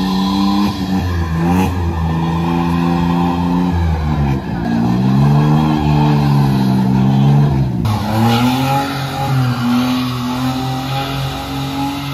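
Small Suzuki hatchback's engine revving hard, its pitch rising and falling, with the driven tyres spinning and squealing as the lowered car sits stuck on a raised kerb. The revs drop sharply about eight seconds in, then climb again.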